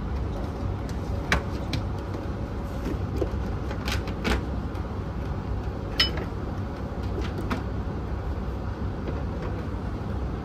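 Steady low background rumble of room noise, with a few sharp clicks and knocks: about a second and a half in, around four seconds in, and once more near six seconds.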